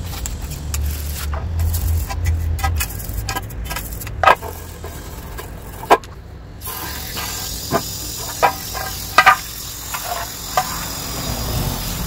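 A toothbrush scrubbing a soapy sheet-metal tray on concrete, with a few sharp knocks and clicks, then a garden hose nozzle spraying water in a steady hiss from about halfway through.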